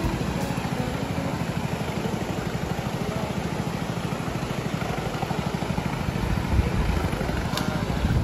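Longboat outboard engine running steadily with a fast, even pulse, holding the boat against a strong flood current.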